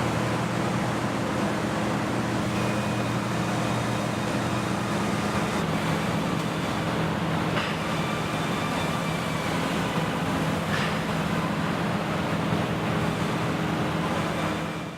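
Steady machinery hum with a few low pitched tones and a couple of light clicks.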